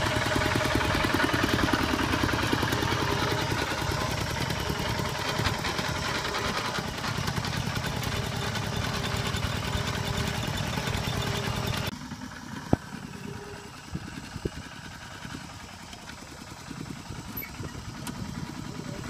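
Single-cylinder diesel engine of a two-wheel walking tractor running with a fast, steady chugging clatter. About two-thirds of the way through, the sound drops abruptly to a quieter, more distant engine idle, with two sharp knocks soon after.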